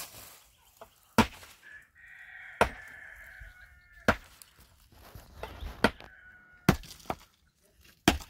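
A hand hammer striking rock, six sharp blows spaced about a second and a half apart, breaking away stone.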